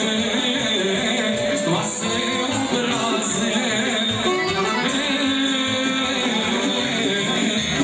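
Live Serbian folk wedding band playing an upbeat song with a singer over a steady beat, amplified in a hall.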